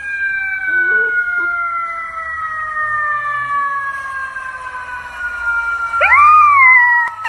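A siren's long wail, one smooth tone slowly falling in pitch. About six seconds in, a puppy joins with a loud howl that rises and then falls.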